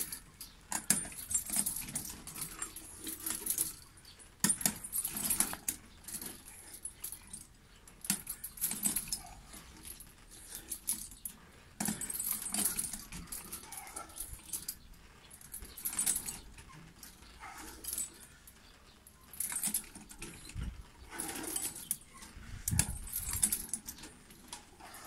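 Metal chains of a tyre swing clinking and rattling in bursts every few seconds as the swing goes back and forth.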